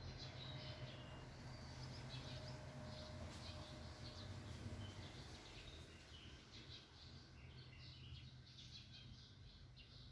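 Several small birds chirping at once, many short calls overlapping throughout, faint, over a low steady hum.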